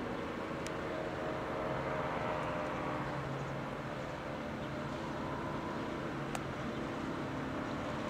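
Steady mechanical hum with several constant low tones over a background hiss, and two faint ticks, one about a second in and one near the end.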